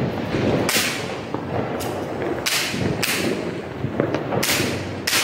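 Diwali firecrackers going off around the neighbourhood: about five sharp cracks, irregularly spaced a second or so apart, each with a short hissing tail, over a steady background rumble.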